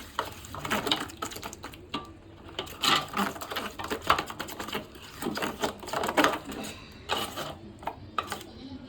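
Spoon stirring a thick chicken 65 marinade of curd, egg white and spice paste in a bowl: a quick, irregular run of clicks, taps and scrapes against the bowl.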